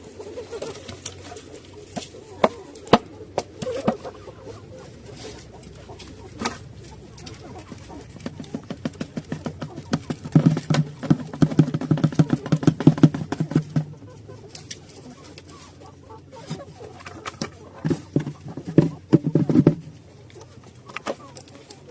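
Knocks, clicks and rattling of household items being handled, with a run of quick rattling from about ten to fourteen seconds in and another cluster of knocks near the end.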